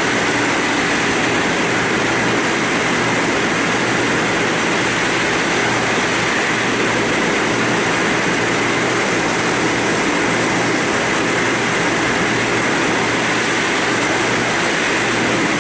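Höfler Rapid 800 gear grinding machine grinding the teeth of a gear shaft: a steady grinding hiss with a low machine hum under it.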